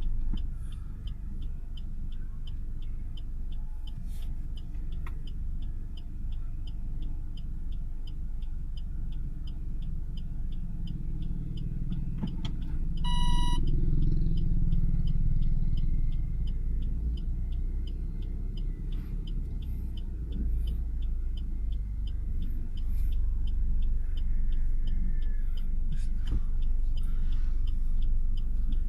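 Car moving with a steady low rumble of engine and road noise, with a faint even ticking, about three a second, in the background. A short beep sounds about halfway through.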